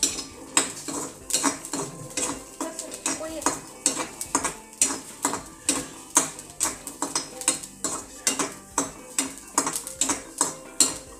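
Metal spoon stirring in a small metal kadai, knocking and scraping against the pan in quick, regular clinks, about three a second.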